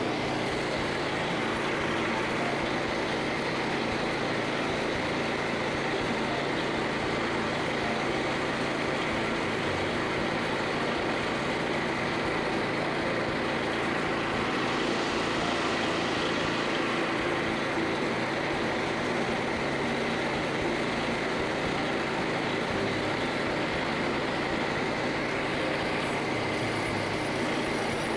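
Frontier OS27 portable band sawmill running steadily at working speed, its new Ripper37 band blade sawing through a red oak log.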